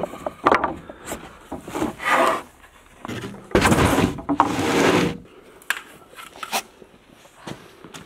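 Wooden boards being handled: knocks of wood on wood, and about halfway through a long scrape as a board slides across the others, followed by lighter knocks.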